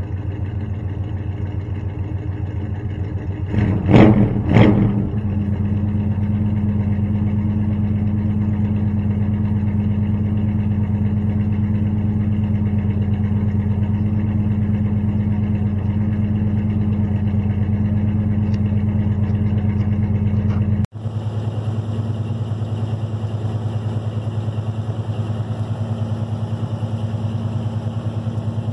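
Old squarebody pickup's engine idling steadily, blipped twice in quick succession about four seconds in. Near the end it is heard idling from inside the cab.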